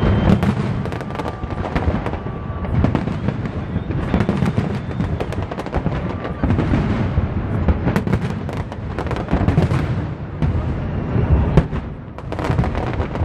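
A dense fireworks barrage: rapid overlapping bangs and crackles over a continuous run of low booms.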